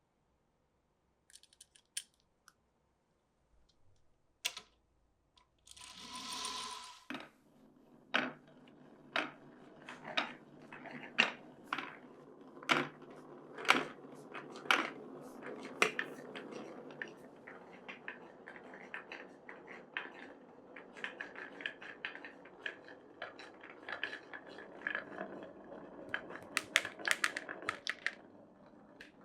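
Glass marbles rolling down a wooden marble run. A steady rolling rumble begins a few seconds in, with sharp clacks about once a second as marbles knock through the track pieces. The clacking grows quicker and busier near the end.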